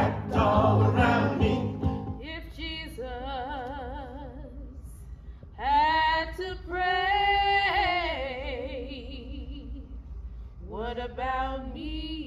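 Voices singing a hymn with upright piano, which breaks off about two seconds in. A woman then sings alone without accompaniment, in three slow phrases of long held notes with a wide vibrato.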